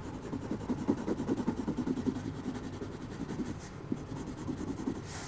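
Brown coloring pencil shading on drawing-pad paper in quick, repeated back-and-forth strokes, pressed lightly so as not to lift the orange marker underneath.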